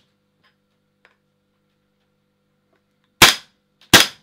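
Gas airsoft pistol, an FNX-45 Tactical, firing two sharp shots about three-quarters of a second apart near the end.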